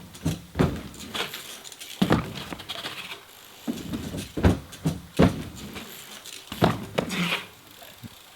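BMX bike being ridden on a wooden ramp: tyres rumbling over the plywood, with a string of sharp knocks and bangs as the bike hits and lands on the wood.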